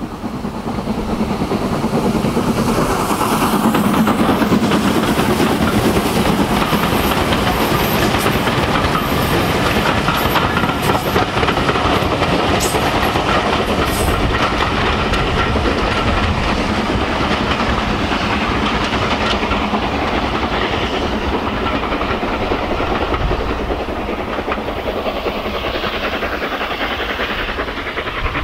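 LSWR S15 4-6-0 steam locomotive No. 506 hauling a train of coaches past, the coaches' wheels clattering over the rail joints. The sound builds over the first few seconds, holds steady, then fades near the end as the train draws away.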